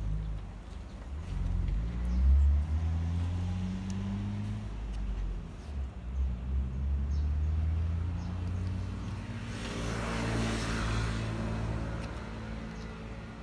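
A motor vehicle's engine running nearby, its pitch rising and falling, with a rush of noise about ten seconds in as it goes by.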